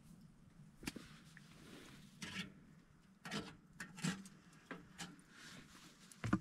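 Scattered light knocks and rustling, as of small objects being handled and set down, with a sharper knock near the end.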